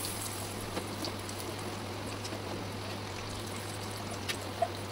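Prawns and their masala sizzling steadily in hot oil on a flat tawa, with a few light clicks and taps as the prawns are lifted off the pan.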